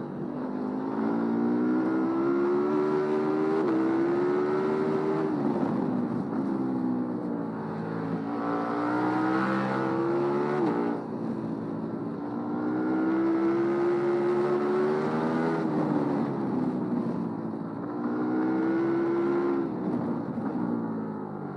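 KTM 1290 Super Duke R Gen 3's 1301 cc V-twin engine pulling hard and backing off several times: the pitch climbs, drops sharply a few times as it is shifted up, and falls away as the throttle closes, then climbs again.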